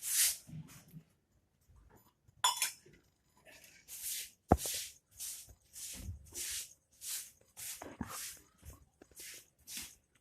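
A dog panting in short, even puffs, about two a second, with a single sharp click about four and a half seconds in.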